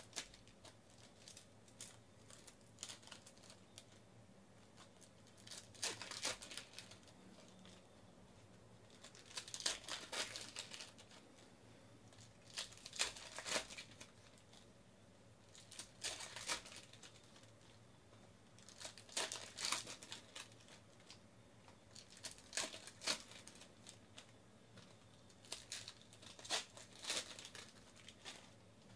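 Plastic-foil trading card pack wrappers crinkling and tearing as baseball card packs are ripped open one after another. The sound comes in short bursts every three seconds or so.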